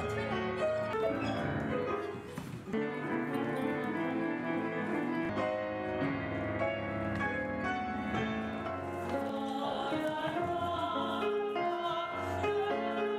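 Music led by a grand piano, a run of held and changing notes with further sustained tones layered over it.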